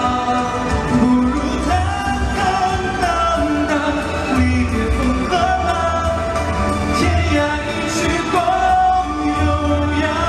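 Two male singers singing a song live into handheld microphones over amplified backing music.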